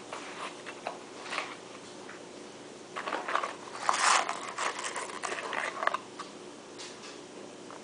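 Small clicks, scrapes and rustling of hands handling a rifle cleaning rod, patch holder and cleaning patch, busiest from about three to six seconds in.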